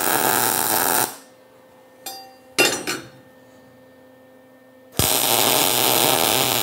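Wire-feed (MIG) welder running a weld bead, joining a square steel tube to a steel plate: a steady sizzle that stops about a second in. A few light clicks and taps follow, then a second weld run starts near the end and sizzles for about two seconds.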